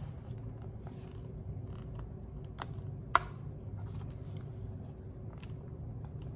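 Clear plastic snap-closure pouch in a cash binder being handled: soft plastic rustling and scattered clicks, with one sharp click about three seconds in.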